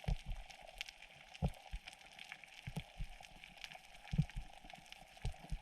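Underwater ambience heard through a camera's waterproof housing: faint irregular clicks and crackle with a few low thumps, the loudest about four seconds in.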